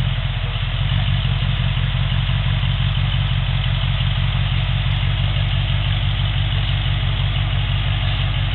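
Tube-chassis rock buggy's engine idling steadily at low revs, with no revving.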